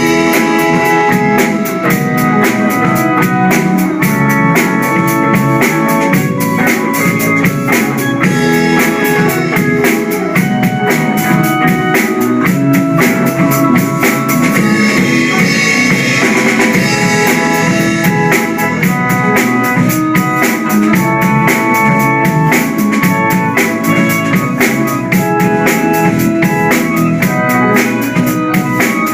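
A band playing an instrumental break of a pop song: a drum kit keeps a steady beat with bass drum, snare and rimshots under held chords, and a cymbal wash swells for a few seconds around the middle.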